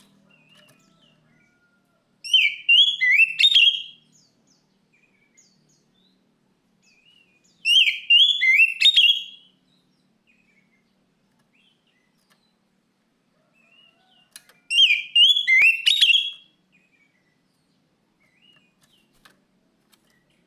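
Oriental magpie-robin (kacer) singing: three bursts of the same quick phrase of whistled notes, each about two seconds long and several seconds apart, with faint scattered chirps between them.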